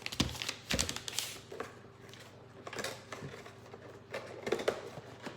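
Irregular clicks and taps of a knife cutting and separating pre-made cookie dough on parchment paper. The strongest taps come in the first second, with another cluster at about four and a half seconds.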